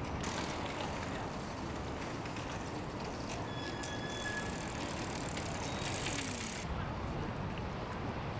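Outdoor city ambience: a steady wash of traffic and street noise, with a brief high squeal about three and a half seconds in.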